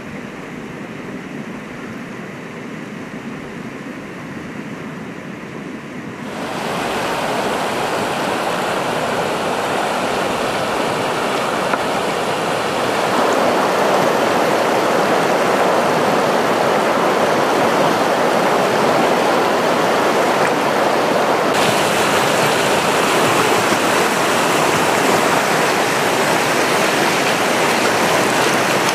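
Rushing water of the Chalhuanca river running fast over stones in rapids, a steady rush. It is quieter at first, then jumps suddenly louder about six seconds in and brightens further about twenty seconds in.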